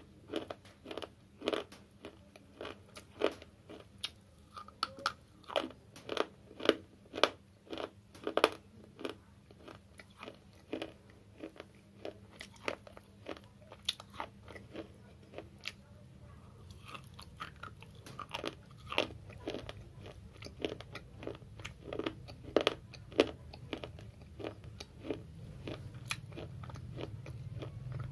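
Sticks of slate bitten and chewed close to the microphone: a steady run of sharp, dry crunches, about two a second. A low hum grows louder near the end.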